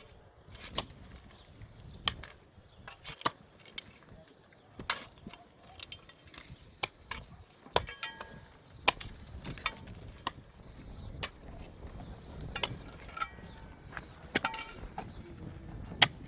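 Irregular sharp clicks and metallic clinks, a dozen or so at uneven spacing, some ringing briefly, over a low background rumble.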